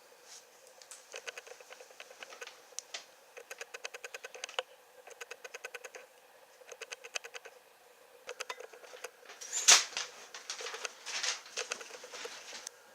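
Typewriter typing in quick runs of keystrokes, about nine or ten strikes a second, with short pauses between runs and one louder clatter about ten seconds in.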